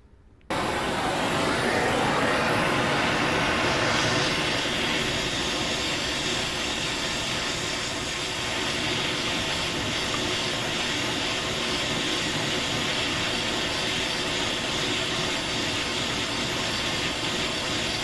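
Gas torch flame running with a steady roaring hiss, heating a rusted exhaust flange spring bolt to free it. It starts abruptly about half a second in.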